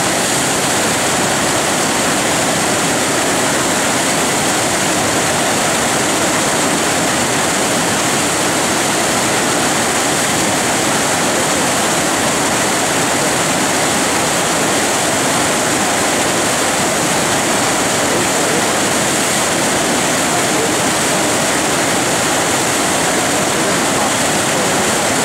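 Tidal rapids rushing steadily: a large standing wave of whitewater breaking without pause on an extra-large flood tide.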